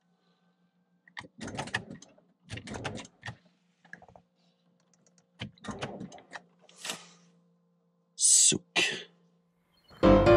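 Clicks and knocks of the ignition key and start button being worked in a 2010 Volvo V70 whose battery is flat, so the engine does not crank. A faint steady hum runs under them, and two louder rustling bursts come near the end.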